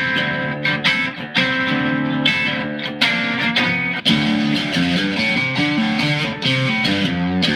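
Mexican-made Fender Stratocaster electric guitar in drop tuning, played with picked and strummed chords that change every second or so.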